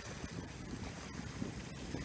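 Wind buffeting the microphone in uneven low gusts, over a steady hiss of wind and sea.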